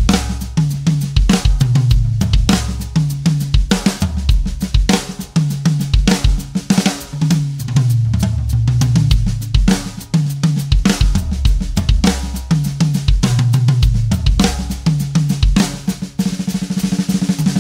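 Sonor Force 3001 drum kit played in a steady groove, with bass drum, snare, hi-hat and cymbals.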